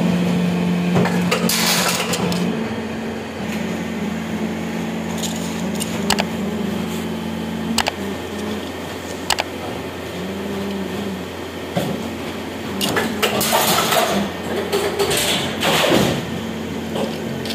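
Factory machinery running with a steady hum, broken by scattered sharp clicks. Near the end come a few bursts of rustling and clattering as moulded plastic plug shells are handled in a plastic sack.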